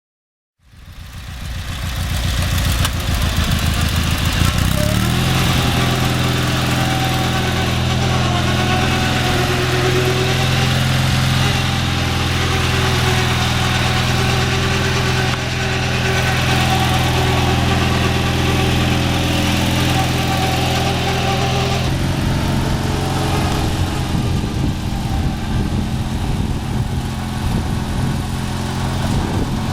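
16 HP Briggs & Stratton 656cc opposed-twin engine running after a tune-up with new head gaskets and spark plugs. It comes in abruptly about half a second in and runs unevenly for a few seconds, steps up to a steady, higher-pitched run about five seconds in, and its tone changes slightly about twenty-two seconds in.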